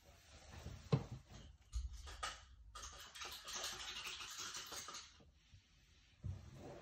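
Handling noises: a few light knocks, then about two seconds of scratchy rustling, and a dull thump near the end.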